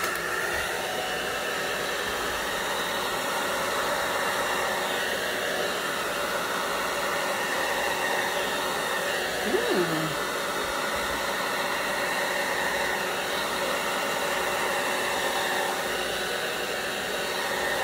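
Handheld hair dryer switched on and blowing steadily, a constant rushing air noise used to push out wet acrylic pour paint. About ten seconds in, a brief rising-and-falling tone sounds over it.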